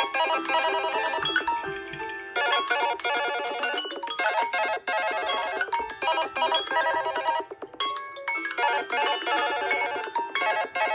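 An Android smartphone playing its built-in ring melody: bright electronic notes repeating quickly, broken by a few short gaps where the tune stops and starts again.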